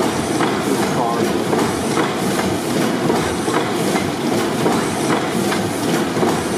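600 HP Snow pipeline compressor gas engine running steadily, a continuous mechanical clatter with regular knocks about twice a second.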